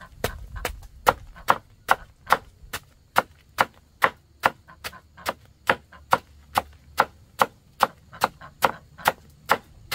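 Knife chopping slices of banana stem on a wooden chopping block, a steady rhythm of about two chops a second.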